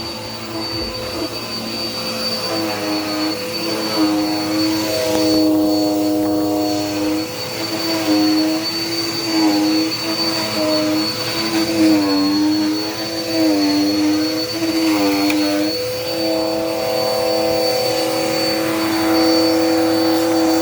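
Dirt Devil Power Max vacuum cleaner running, with a steady high whine over its motor hum. The motor's pitch dips and recovers over and over through the middle of the stretch, then holds steady.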